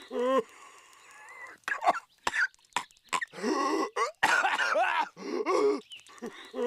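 Exaggerated, voice-acted cartoon coughing from a starfish character: several harsh, hacking coughing fits with short gaps between them. The longest fit comes from about halfway in.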